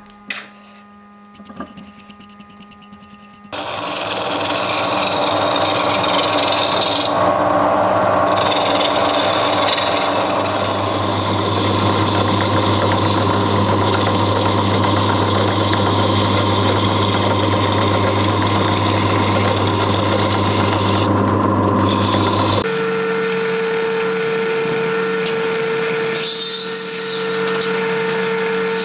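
Benchtop drill press spinning a brass disc while a hand file is held against its edge, turning the brass guard down like a lathe: a steady motor hum with the rasp of the file on the metal. It starts about three and a half seconds in after a few light clicks, and about two-thirds of the way through the low hum drops away and a steady higher whine takes over.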